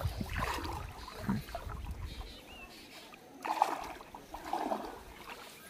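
Shallow floodwater splashing and sloshing in a few irregular bursts as a man wades and lifts a fine gill net out of it. A low wind rumble on the microphone fades out after about two seconds.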